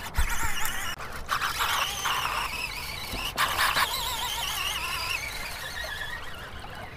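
Fishing reel drag squealing as a hooked tarpon pulls line off against it, a wavering whine with a few louder rasps. It drops lower in pitch toward the end as the run slows.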